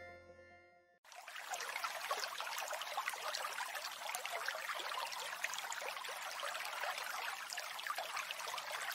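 Running water trickling steadily, like a small stream, starting about a second in after music fades out.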